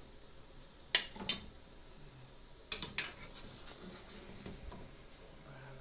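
Ladle clinking and knocking against the cooking pot and a plate as pieces of boiled chicken are lifted out of the broth. There are a few sharp knocks: two about a second in, a cluster around three seconds in, and lighter ones after that.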